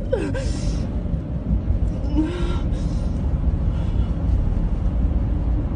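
Steady low rumble of a car driving, heard from inside the cabin, with a couple of short hissing rushes, one near the start and one about two seconds in.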